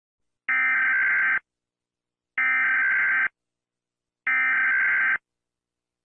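US Emergency Alert System SAME header: three harsh, buzzing digital data bursts, each about a second long with about a second of silence between them. This is the coded header that opens an EAS alert.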